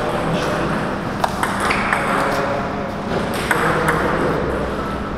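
Table tennis ball clicking off rubber-faced rackets and the table during a serve and rally: a string of sharp ticks starting about a second in, a few tenths of a second to a second apart.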